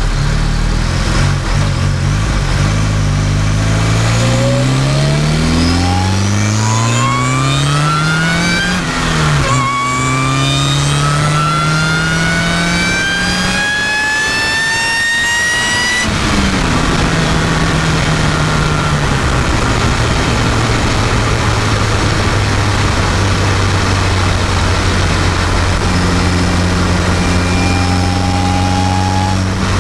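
Cobalt SS engine with an Eaton TVS 1320 supercharger on a 2.9 pulley, heard at the intake, pulling slowly under boost. The supercharger whine and engine note climb steadily in pitch, break briefly about nine seconds in, and climb again. Then, about sixteen seconds in, they drop off suddenly and fall in pitch to a steady lower running note.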